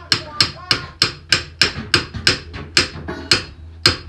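Claw hammer striking a steel pin in a VW Beetle's pedal cluster in quick, even blows, about three a second, driving the pin in with a sharp metal-on-metal knock each time.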